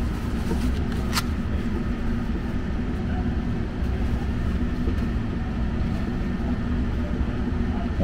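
Steady low mechanical hum of a furnace blower running, with a single sharp click about a second in.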